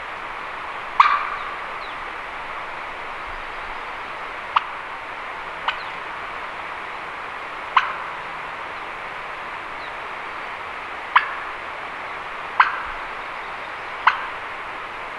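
Seven short, sharp turkey clucks, single notes spaced one to three seconds apart, each with a short echo, over a steady rushing background noise.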